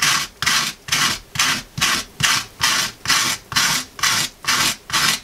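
Hand scraper rasping across the dried, stiff flesh side of a salted squirrel skin stretched tight on cardboard, in quick even strokes about two and a half a second. The scraping is taking off dried salt and membrane to prepare the skin for tanning.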